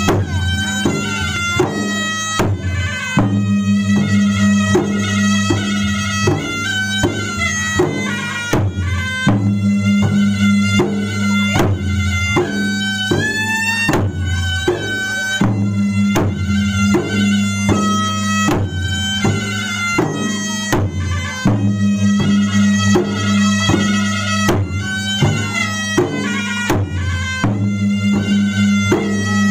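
Bugis-Makassar gendang drums beaten with hand and stick in a fast, steady rhythm, with a reedy wind instrument playing a wavering, bending melody over them and a steady low hum beneath.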